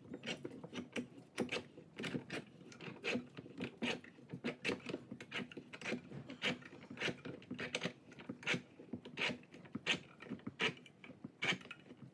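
Irregular clicks and light knocks, roughly two or three a second, from hand tools and metal parts being handled while a shock absorber is taken apart.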